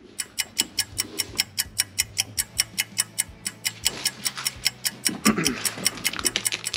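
Rapid, even mechanical ticking, about six or seven sharp clicks a second, starting abruptly. There is faint low murmuring about four and five seconds in.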